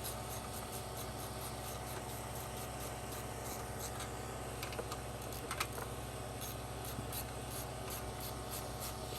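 Quiet scattered clicks and light scraping of hand tools tightening bolts, over a steady low hum.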